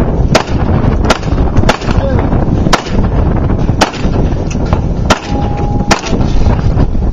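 Gunshots during a 3-gun stage: about seven sharp shots at an uneven pace, roughly a second apart, over heavy wind noise on the microphone.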